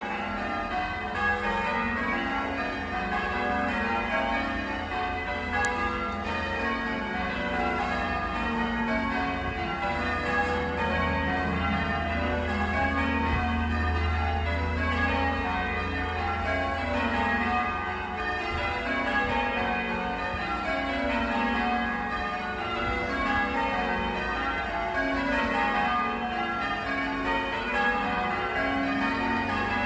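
Church tower bells rung full-circle in English change ringing, a continuous stream of strikes one after another with the tones overlapping. A low rumble sits beneath them, strongest around the middle.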